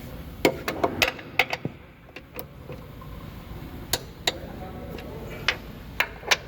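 Hand tools clicking and knocking against metal car parts: an irregular run of about a dozen sharp strikes, most of them in the first second and a half.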